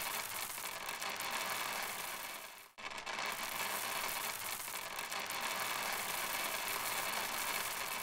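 Many small plastic balls clattering down a metal chute in a steady, dense rattle, breaking off for a moment a little under three seconds in and then going on.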